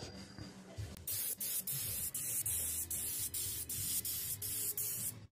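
Clear polyurethane lacquer being sprayed onto a painted engine block: a steady spray hiss that starts about a second in, with brief regular dips, and stops just before the end.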